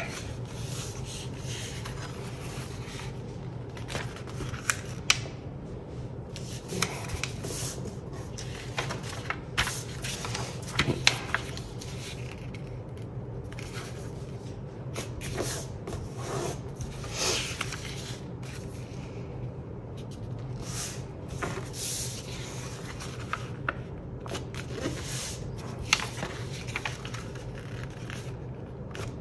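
A sheet of A4 paper being handled and folded on a tabletop: irregular rustling, sliding and scraping as fingers press and run along creases, with a few sharp ticks. A steady low hum runs underneath.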